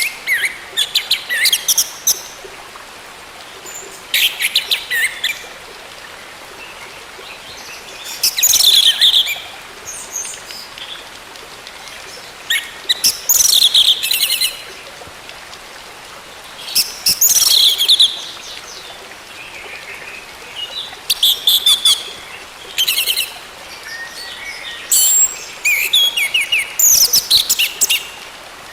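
Orange-headed thrush (anis merah) singing in short bursts of rapid, varied high whistled notes, a new phrase every few seconds, over a faint steady hiss.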